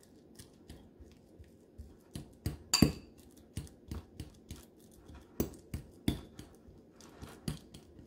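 Metal fork mashing a banana in a ceramic bowl: irregular clinks and taps of the tines against the bowl, with one louder, ringing clink about three seconds in.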